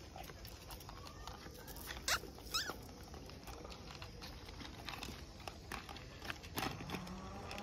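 Dogs eating from food bowls: irregular crunching and clicking as they chew and nose the bowls. A brief high chirp about two and a half seconds in, and music starts near the end.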